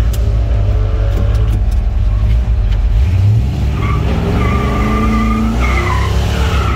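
Drag-race car engines rumbling, heard from inside a vehicle's cab. About three seconds in, an engine revs up, and from about four seconds in a high two-tone squeal is held, dipping in pitch near the end.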